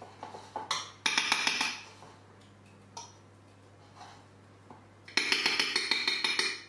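Metal spoon clinking and scraping against a glass baking dish while dry couscous is stirred, in two bursts of rapid clinks: one about a second in, and a longer one over the last second and a half.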